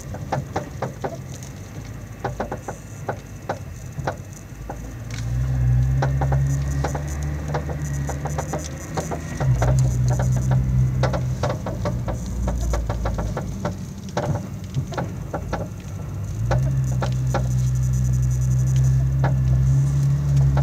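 Repeated sharp clicking and knocking from the front suspension of a Nissan GT-R at low speed, over the car's low engine drone, which comes and goes several times. The noise persists after the front adjustable control arm ball joints were replaced; the owner suspects the heim joints.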